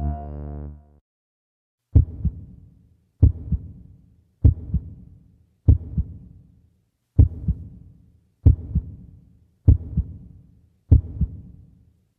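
Heartbeat sound effect in a break in the backing music: eight slow, deep double thumps, lub-dub, about one every 1.2 seconds. A held music chord fades out in the first second.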